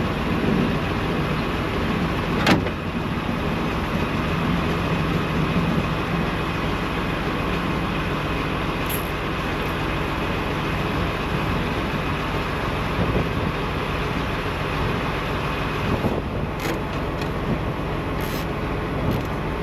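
Heavy diesel truck engine idling steadily nearby, with a sharp metallic click about two and a half seconds in and a few lighter clicks near the end.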